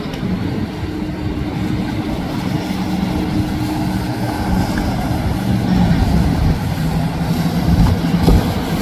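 Large motor yacht's engines running as it cruises past, a steady low drone with an even hum, getting slightly louder in the second half.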